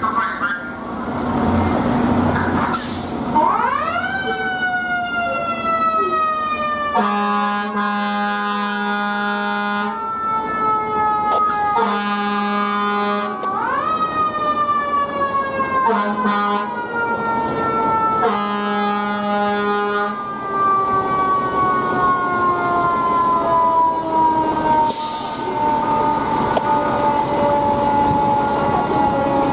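FDNY ladder truck's mechanical siren winding up twice and slowly coasting down in pitch, with four long blasts of its air horns in the middle stretch as it pulls out to respond.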